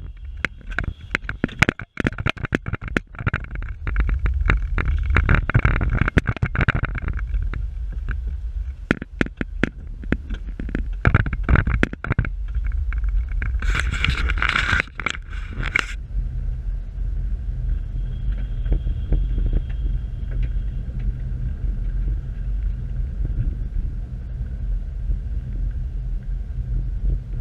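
2018 Subaru Forester driving slowly over a snowy track, heard from inside the cabin as a steady low rumble. Many clicks and knocks come through in the first dozen seconds, and there is a burst of hiss about 14 seconds in that stops suddenly about two seconds later.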